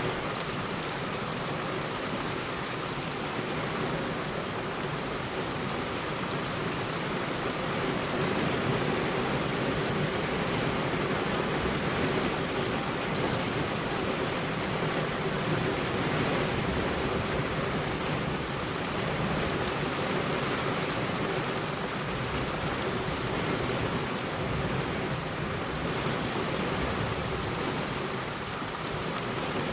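Heavy rain falling steadily on a road: an even, unbroken hiss of drops with no thunder.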